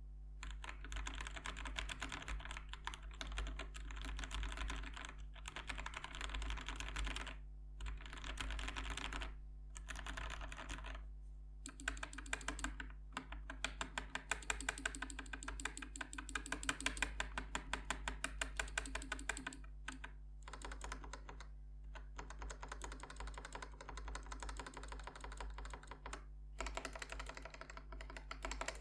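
Typing on a Dark Project KD87A tenkeyless mechanical keyboard with factory-lubed linear Gateron Cap Teal switches: fast, continuous key clacks broken by a few brief pauses.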